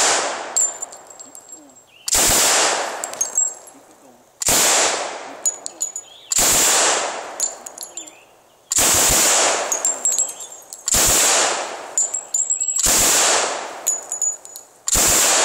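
M3 'grease gun' .45 ACP submachine gun fired on full auto in about seven short bursts, roughly two seconds apart. Light metallic clinks between the bursts.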